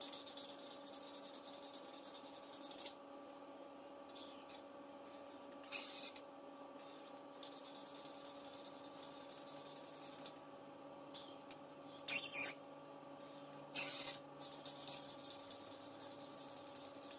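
Felt-tip marker rubbing on a savings-challenge card as squares are coloured in: faint scratchy strokes, a few of them louder, over a steady low hum.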